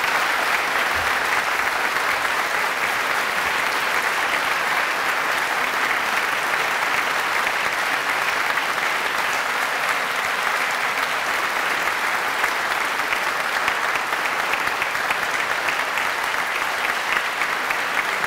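Large audience applauding steadily, a sustained, dense round of clapping.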